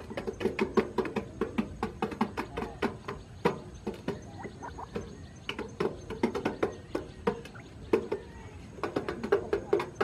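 Quail pecking at bait inside a tin can: a rapid, irregular run of sharp taps that ring hollow off the metal, easing off twice for a moment before picking up again.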